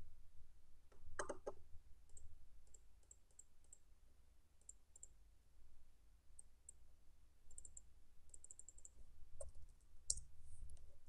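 Computer mouse clicks: a quick cluster of louder clicks about a second in and another near the end, with groups of light quick ticks from the scroll wheel in between, over a steady low hum.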